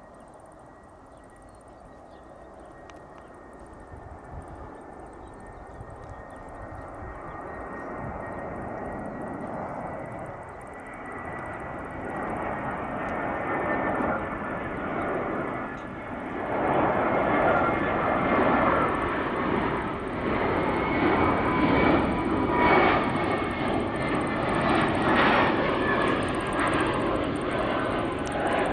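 Airbus A319 jet airliner on final approach with its landing gear down, the engines' noise growing steadily louder as it nears, with a high whine that drifts slightly in pitch.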